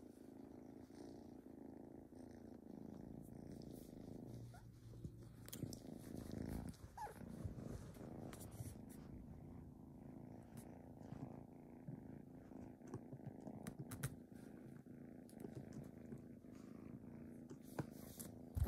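Domestic cat purring steadily and softly, with scattered light clicks, and one sharp knock near the very end.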